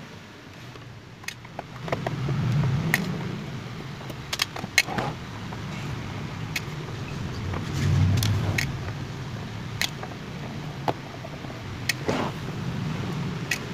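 Hand screwdriver unscrewing screws from an audio mixer's metal casing: irregular small metal clicks and clinks with the rub and rumble of hands handling the unit, swelling a few times.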